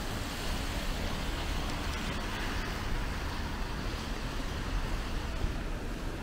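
Street traffic on wet roads: a steady hiss of tyres on wet tarmac that swells near the middle as a vehicle passes, over a low rumble.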